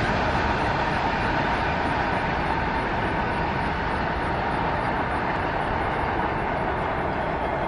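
Freight train's rear cars rolling away on the rails: a steady rumble of wheels on track that slowly fades.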